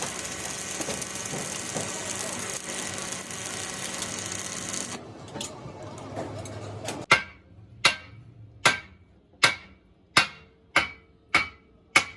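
A steady hiss for about the first five seconds, which then stops. From about seven seconds in, a hammer strikes metal in a regular rhythm: about eight sharp, ringing blows, a little under a second apart and gradually quickening.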